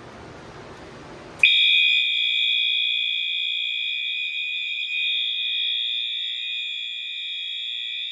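Fire alarm sounders switch on abruptly about a second and a half in and hold a loud, steady, high-pitched tone without a break: the system going into alarm as a device is tripped for a test.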